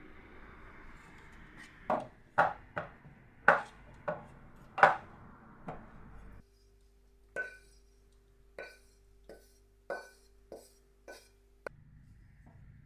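Kitchen prep sounds: a series of sharp knocks and clinks of utensils against dishes, about a dozen irregular strikes, the later ones lighter.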